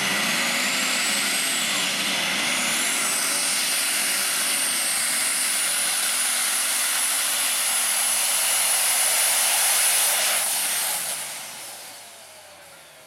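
Turbocharged International 766 pulling tractor running flat out under load while dragging the sled, with a high whine that climbs over the first few seconds and then holds. About eleven seconds in, the whine stops and the engine noise falls away.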